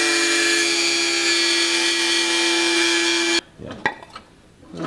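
Flex-shaft rotary tool with a cutoff wheel grinding at the piezo transducer bonded to the bottom of a stainless steel ultrasonic-cleaner pan: a loud, steady, high whine that cuts off suddenly about three and a half seconds in. A few light knocks follow.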